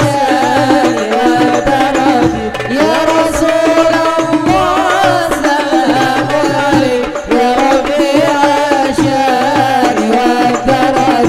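Hadroh ensemble playing: rebana frame drums beating a steady rhythm under a voice singing a long, wavering melismatic line of a qasidah.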